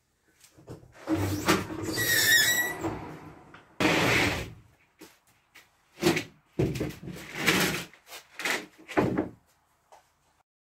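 A garage door is opened with a squeaking, rattling run lasting about two seconds. After it comes a string of scrapes and knocks as a large OSB sheet is slid, tipped and dropped flat onto the concrete floor, with the loudest knocks about four, six and nine seconds in.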